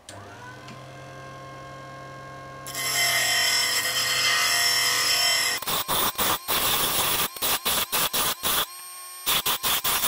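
Parkside disc sander switched on and spinning up to a steady motor hum. A 5 mm Grade 5 titanium link rod is then pressed against the sanding disc, grinding continuously for about three seconds and then in a string of quick short touches. This is the rod's thread end being chamfered.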